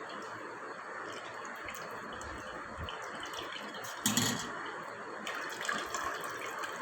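Coconut milk trickling and dripping through a cloth strainer into a vessel as the soaked grated coconut is pressed, with a single knock about four seconds in.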